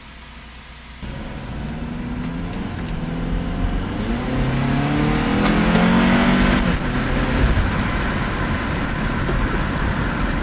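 A 2009 Honda CR-V's four-cylinder engine accelerating hard to about 4,000 rpm. It starts about a second in, rises steadily in pitch for about five seconds, then drops back. On this pull the VTEC system switches over and works fine, though the engine has an intermittent VTEC rocker-arm oil control fault (code 2646, stuck off) that throws it into limp mode.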